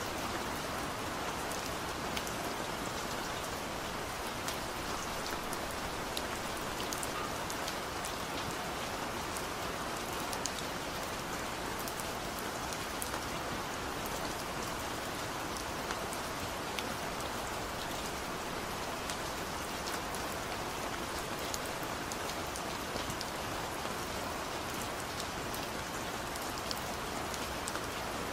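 Steady rain: an even hiss of falling rain with scattered small drop ticks.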